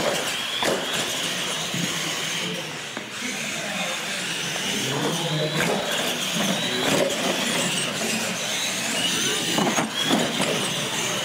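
Electric RC monster truck running on a smooth concrete floor: a high motor and gear whine that rises and falls with the throttle, over tyre noise. A few sharp knocks as it bounces over obstacles, the loudest near the end as it lands off a jump.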